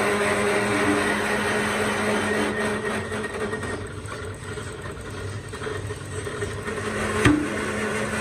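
Heavy workshop press machine running with a steady mechanical hum while a steel truck rim ring is worked in its die, with a single sharp metal knock about seven seconds in. The running noise is louder for the first few seconds, then eases back a little.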